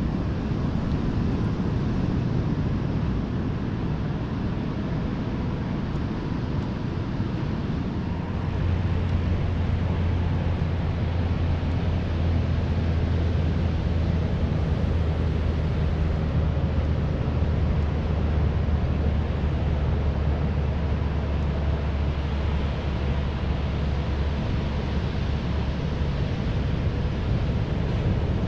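Wind rushing over the microphone of a moving bike, a steady rumble, with a strong low drone joining about eight seconds in and fading near the end.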